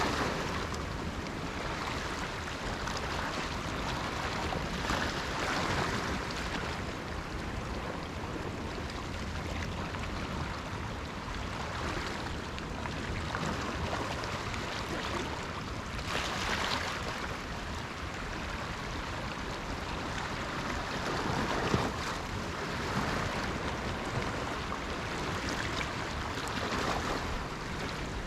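Sea waves breaking and washing in, a fresh swell of surf every few seconds over a steady low rumble of wind on the microphone.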